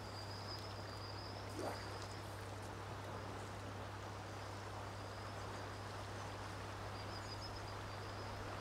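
Faint, steady rush of river water, with a thin high note running on and off through it and one short rising sound about one and a half seconds in.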